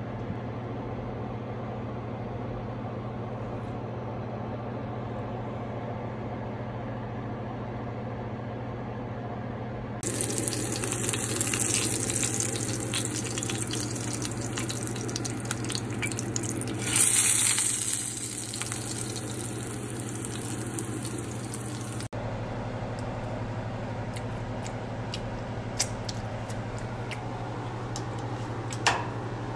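Ahi tuna steak sizzling in hot oil in a cast-iron skillet for about twelve seconds. The hiss swells briefly partway through and cuts off suddenly. Before and after it there is only a steady low hum, with a few light clicks near the end.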